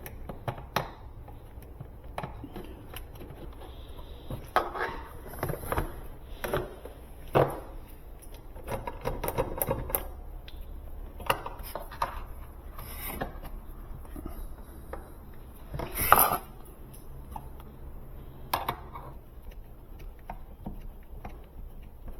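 Hand tools clicking, knocking and scraping against the plastic housing of an electric pressure washer as its power switch is pried out, in scattered irregular clatters with one louder clack about 16 seconds in.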